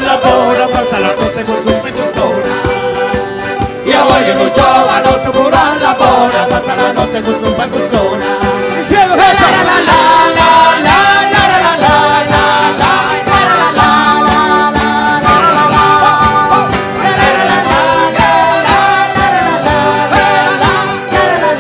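Salento folk band playing a fast dance tune live, with melody lines and singing over a quick, even percussion beat.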